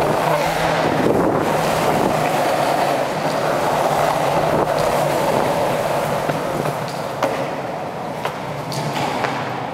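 Longboard wheels rolling on a concrete floor: a steady rolling rumble with a few sharp clicks, easing off a little near the end.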